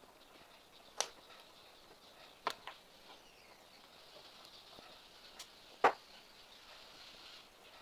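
Sharp clicks and taps of hand tools on a circuit board as a push-button switch is desoldered from an induction cooker's control board: one click about a second in, a quick pair a moment later, and the loudest near the end, over a faint steady hiss.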